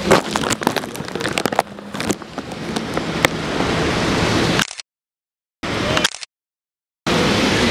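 Handling noise from a handheld phone camera being moved: a run of sharp knocks and rustles, then a steady noisy hiss that slowly grows louder. The sound cuts out to dead silence twice near the end, each time for under a second.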